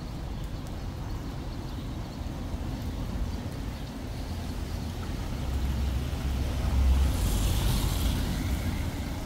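A vehicle passing close by: a low rumble that swells, peaks about seven seconds in with a hiss at its loudest, then eases off.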